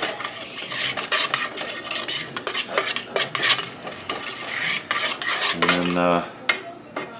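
A utensil stirring a thick, chunky sauce in a stainless steel saucepan, with a continuous run of scrapes and clinks against the metal pan.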